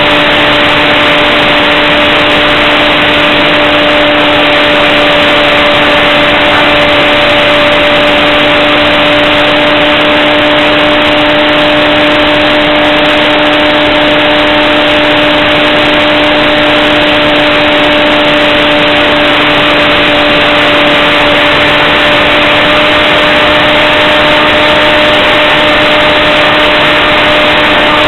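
RC airplane's motor and propeller running at a steady throttle, heard up close from the plane's onboard camera as an unchanging drone over dense rushing air.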